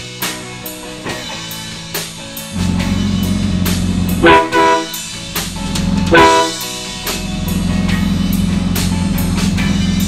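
Truck-mounted air train horn on a 200 PSI air tank giving short blasts: two quick blasts about four seconds in, then one more about two seconds later. Rock music with drums and guitar plays throughout.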